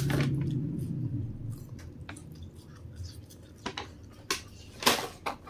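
Paper fast-food takeout bag rustling and crinkling as it is handled, with sharp crinkles about four and five seconds in. A low hum runs under the first couple of seconds and fades out.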